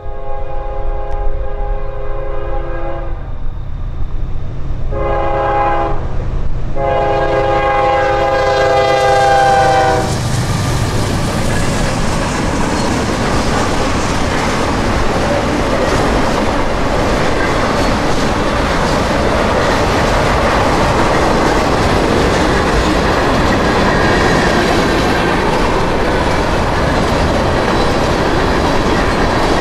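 Norfolk Southern freight train sounding its horn for a grade crossing: a long blast, a short one and a final long one that ends about ten seconds in, over the locomotive's engine rumble. The train then passes fast, its wheels and freight cars clattering steadily over the rails.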